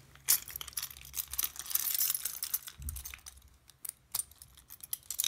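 A bunch of keys jingling and clicking in the hand as they are worked off their clip, in quick irregular clicks with a busier rattle about two seconds in.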